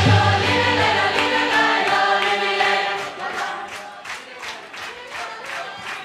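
Large mixed choir singing a Resian folk tune with the full folk orchestra, live. A deep bass note holds under the voices for the first three seconds, then drops out, leaving the singing quieter over a light steady beat.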